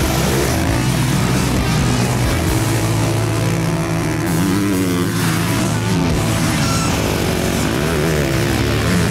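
Motocross dirt bike engines running hard on the track, their pitch rising and falling repeatedly as the riders work the throttle through turns and jumps.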